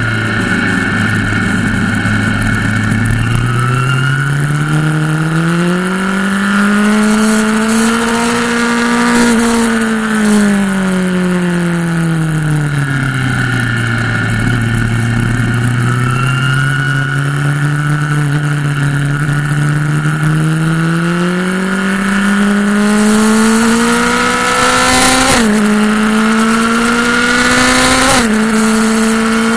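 Motorcycle engine heard onboard at track speed: its pitch rises under acceleration, falls back as it slows, then climbs steadily again, with two brief dips in pitch near the end. Steady wind rush over the microphone underneath.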